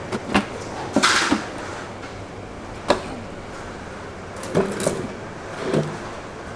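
Scattered knocks and clunks of kitchen work, about half a dozen in a few seconds, over a steady background.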